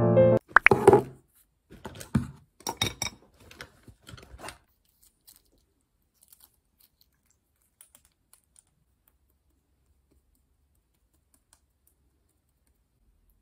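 A run of clicks, taps and rustles from small objects being handled at a desk, loudest in the first second and trailing off after about four and a half seconds. Then only a few faint ticks and near quiet.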